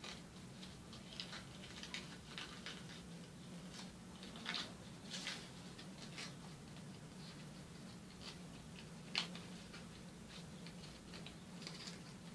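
Sheet of origami paper being folded and creased by hand: soft, irregular rustling and crinkling, with one sharper crackle a little past the middle. A faint low hum runs underneath.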